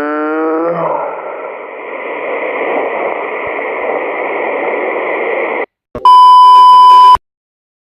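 A held pitched sound with many overtones fades out within the first second, leaving a hiss like radio static with a steady high whine that cuts off suddenly. After a short gap a loud single-pitch beep sounds for about a second and stops dead.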